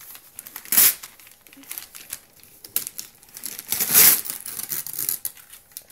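Gift wrapping paper being torn and crinkled by small children's hands, with two louder rips, about a second in and about four seconds in.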